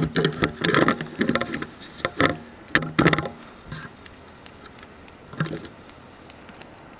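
Handling noise: a nylon winter jacket rustling and rubbing against the camera's microphone, in dense clusters of rustles and knocks for about the first three seconds, with one more short burst a little past halfway.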